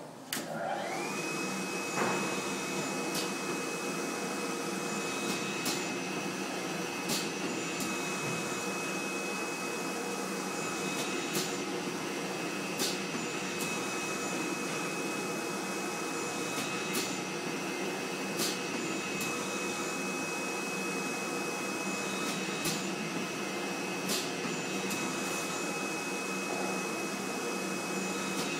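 Flatbed screen printing machine switched on: its motor starts and spins up within about a second to a steady whir with a high whine. Sharp clicks come every second or two over it.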